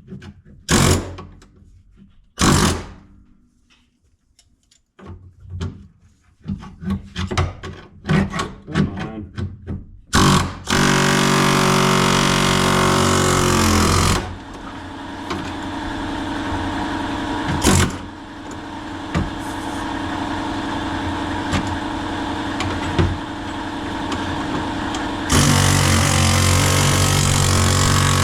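Pneumatic air chisel with a flat bit hammering through rusted sheet-steel floor pan. There are short bursts and sharp knocks for the first ten seconds, then it runs steadily with a hard, rapid chatter from about ten seconds in, goes quieter for a stretch, and comes back loud near the end.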